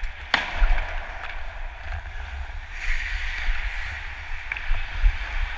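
Ice hockey skating heard from a helmet-mounted camera: wind rumbling on the microphone and a steady hiss of skate blades cutting the ice, with one sharp crack about a third of a second in.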